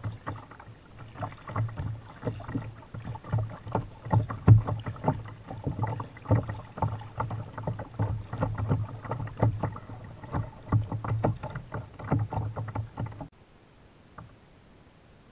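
Kayak being paddled with a double-bladed paddle: blades dipping and splashing stroke after stroke, with low knocks and water sloshing against the hull. The paddling stops suddenly near the end.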